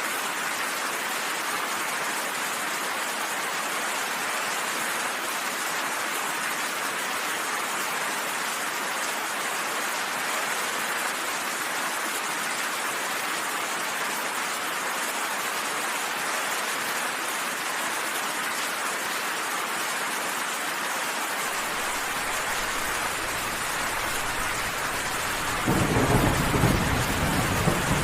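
Steady heavy rain falling in an even hiss. A faint low rumble of thunder starts about three-quarters of the way in. Near the end a loud thunderclap rolls in and keeps building.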